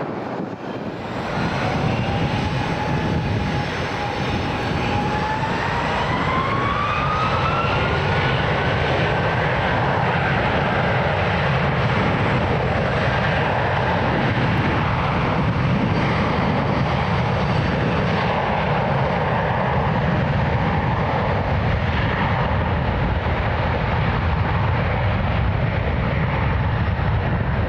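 Boeing 757's twin jet engines spooling up for takeoff: a whine rising steadily in pitch over the first several seconds, then loud steady jet noise with a deep rumble.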